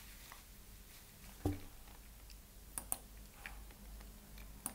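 Faint clicks of a computer mouse over quiet room tone. There is a soft knock about a second and a half in, a quick pair of clicks near three seconds, and another click near the end.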